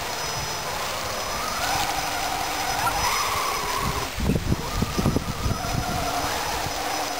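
RC monster truck's motor whining, its pitch rising and falling with the throttle, over a steady hiss. A run of low, irregular thumps comes about four to five seconds in.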